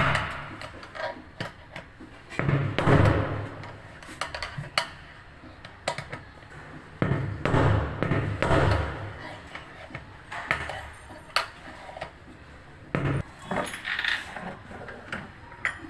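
Irregular clinks and knocks of metal being handled, with a few louder, rougher clattering stretches.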